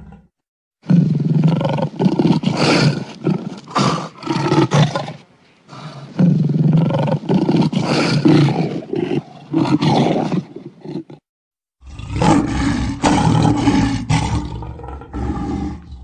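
Tiger roaring and snarling in three long bouts, each made of several loud surges, with short breaks about five and eleven seconds in.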